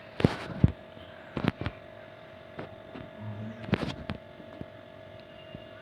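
A steady electrical hum with scattered sharp clicks and taps, about seven or eight of them, and a short low sound a little after the middle.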